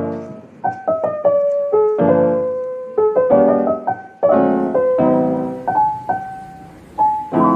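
Background piano music: soft chords struck about once a second, each ringing and fading, with single melody notes between them.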